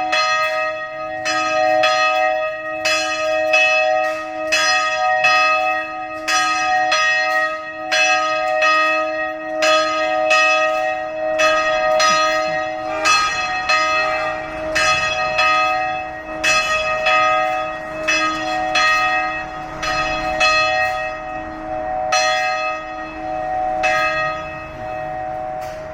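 Church bells ringing a peal of quick overlapping strikes, about two a second, over the steady hum of the bells' held tones. The strikes thin out near the end, leaving the hum.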